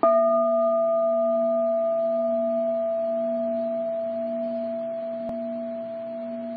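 A single struck, bell-like metal tone ringing out and slowly fading, its higher overtones dying away first, with a faint click about five seconds in.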